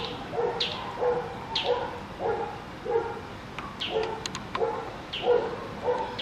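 Small dogs barking over and over in an even run of about two barks a second, with short high yips mixed in.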